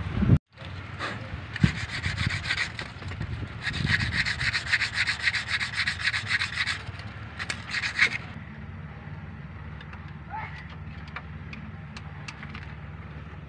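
Rhythmic rasping scrape, several strokes a second, of the new alternator's metal mounting being rubbed down by hand, because it was too tight to fit. The scraping stops about eight seconds in, leaving faint light clicks.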